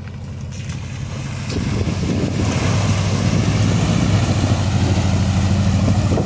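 Air-cooled flat-four engine of an old Volkswagen Beetle running under load as the car pushes through a deep mud puddle, with mud and water splashing. The engine grows louder about a second and a half in, then holds steady.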